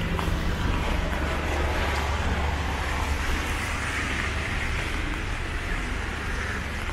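City street traffic: a steady low rumble of passing vehicles under a continuous wash of tyre and road noise.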